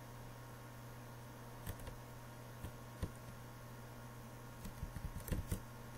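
Computer keyboard and mouse clicking, a few single clicks, then a quick run of clicks near the end, over a steady low hum.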